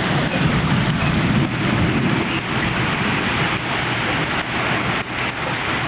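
Heavy rain falling steadily in a thunderstorm, with a low rumble, stronger in the first couple of seconds, that then eases.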